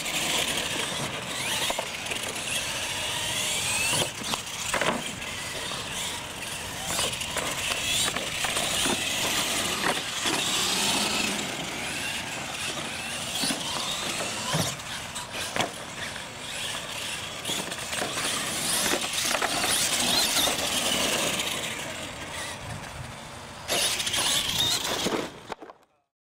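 Electric motors of radio-controlled monster trucks whining, rising and falling in pitch as the trucks accelerate and brake, over tyre noise on concrete, with several sharp knocks as they hit and land off the wooden ramps. The sound cuts off abruptly near the end.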